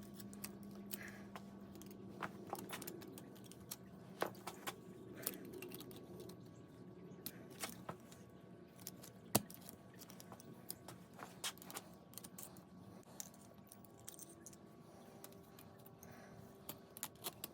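Scattered light metallic clicks and clinks as the thin sheet metal of a license plate is bent and folded into rose petals, over a steady low hum.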